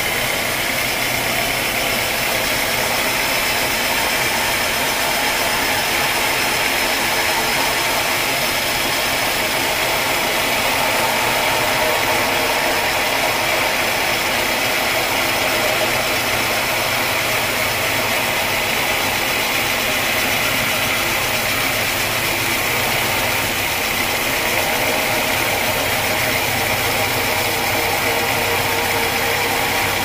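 Sawmill running steadily as its blade saws through a dense acacia wood log.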